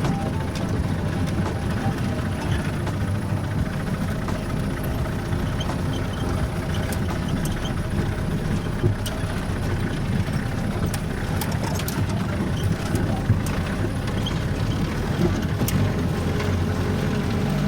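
A vehicle's engine running steadily under a continuous low drone of road noise, with a few light knocks, the sharpest about nine and thirteen seconds in.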